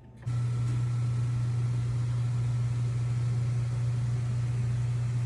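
A steady low machine hum with a constant hiss, switching on abruptly just after the start and running on without change.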